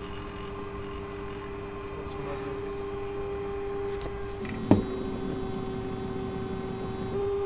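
Prototype concrete 3D printer running, its stepper-motor drives and concrete pump giving a steady motor whine that gets louder near the end. A single sharp click about halfway through.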